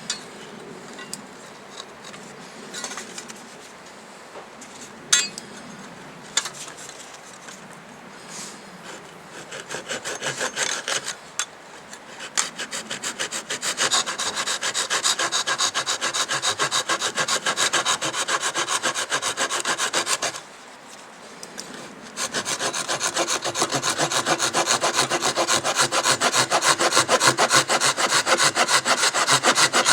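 Saw cutting through wood in fast, even strokes, starting about ten seconds in, stopping briefly near two-thirds of the way and then resuming louder. Before the sawing there are a few scattered knocks.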